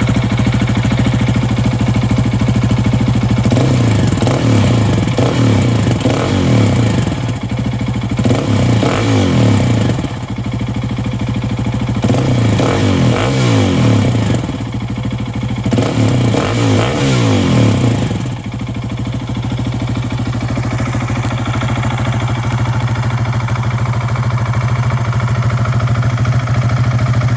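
2021 KTM 690 SMC R's single-cylinder engine, breathing through an Arrow slip-on muffler. It idles, then is revved in four spells over about the first two-thirds, and settles back to a steady idle near the end.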